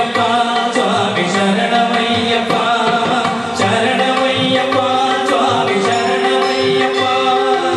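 Carnatic-style Indian classical dance music with singing and drum accompaniment, as used for Bharatanatyam. About halfway through, a long note is held.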